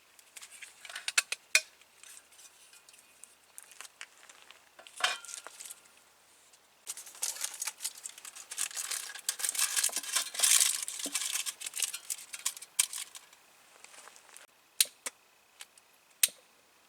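Camping gear being handled by hand: scattered light clicks and clinks, with a stretch of crinkling and rustling in the middle.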